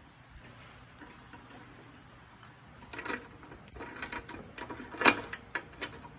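Light clicks and knocks of metal parts being handled, starting about three seconds in, with one sharper knock near the end: the dipstick tube of a Briggs & Stratton lawn mower engine being worked by hand to seat it.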